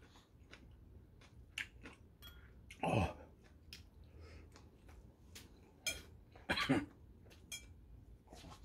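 Eating sounds from a man at a meal: chewing and mouth noises, with light clicks of metal chopsticks against a dish. A louder mouth sound with falling pitch comes about three seconds in, and another louder burst of mouth noise around six and a half seconds.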